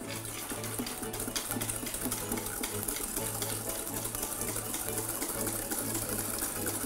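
Wire balloon whisk beating egg yolks and sugar in a metal mixing bowl: a rapid, steady rattle of the wires against the bowl. The whisking goes on without pause while hot milk and cream are ladled in, tempering the yolks so they don't curdle.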